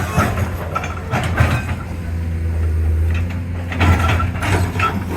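Excavator working: its diesel engine runs steadily under repeated clanks and squeaks from the boom and bucket linkage.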